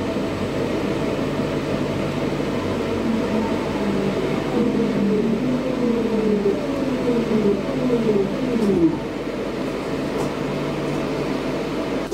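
Class 323 electric multiple unit's traction motors whining down in pitch over the train's running noise as it brakes into a station, several falling tones together, the whine dying away about three-quarters of the way through.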